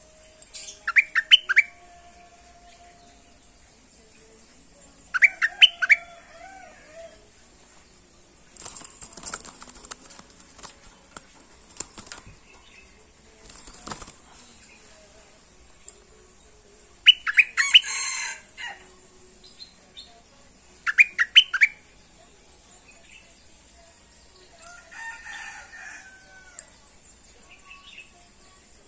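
Caged bulbul (merbah lekir), a bird just coming into song, singing four short phrases of quick, sliding notes, each lasting under a second. Between phrases there is rustling and a few sharp knocks, from the bird moving about in its cage.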